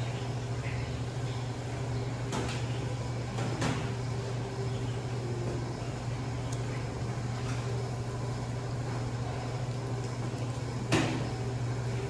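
Steady low hum of kitchen ventilation, with a few scattered clicks and knocks of utensils on a steel counter; the loudest knock comes near the end.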